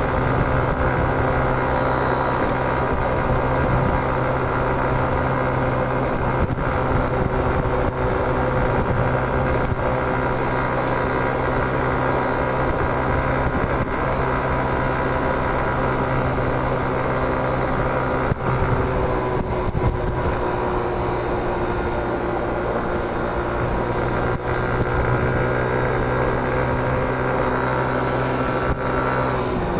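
Small motor scooter engine running steadily at cruising speed, with road and wind noise; the engine note eases slightly lower in pitch in the last third.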